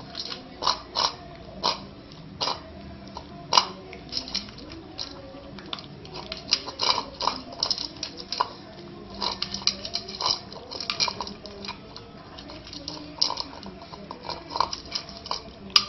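Rottweiler puppy, about 45 days old, eagerly eating dry kibble: quick, irregular crunches and clinks that come in bursts.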